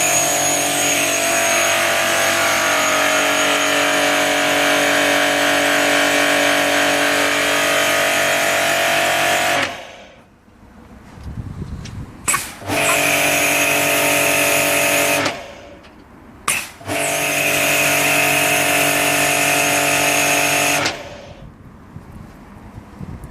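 Karcher 650MB pressure washer running steadily, then cutting out about ten seconds in. After a short blip it runs again for two or three seconds, stops, blips once more, runs for about four seconds and stops near the end.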